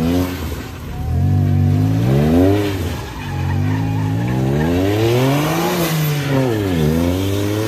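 A BMW 335i's turbocharged inline-six, heard from outside the car, revs up and drops back about three times as the car is pitched into a drift on wet pavement.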